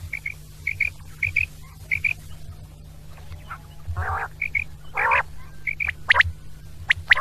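Quail calling: short paired high notes repeated about every half second, with louder, rougher calls about four and five seconds in and a few sharp high notes near the end, over a steady low hum.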